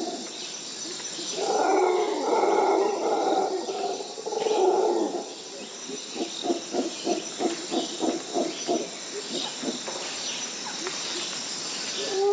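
Mantled howler monkeys calling: deep drawn-out roars, then a fast series of short grunts at about five a second that slows and fades, with another roar starting near the end. A steady high buzz of insects runs underneath.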